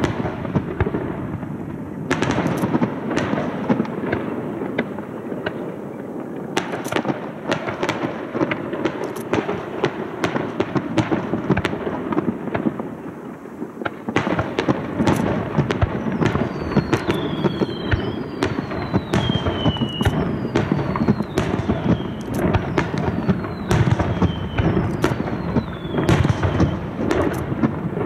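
Aerial fireworks going off in quick succession: sharp cracks and bangs over a continuous low rumble of bursts. In the second half, several falling whistles come in, one after another.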